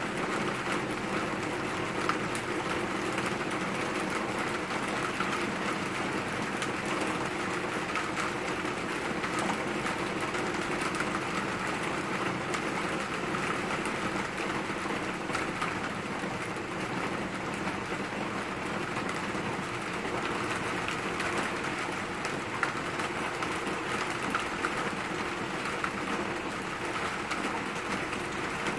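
Steady summer rain falling on trees and leaves: an even hiss, with scattered faint ticks of individual drops.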